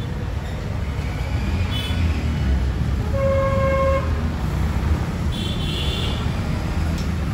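A vehicle horn sounds once for about a second near the middle, over a steady low road-traffic rumble. Fainter, higher-pitched horn toots come before and after it.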